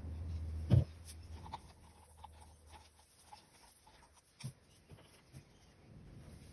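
A dull thump about a second in, then a few light knocks and rustles as plastic and paper cups of resin are handled and set down on a plastic-sheeted table.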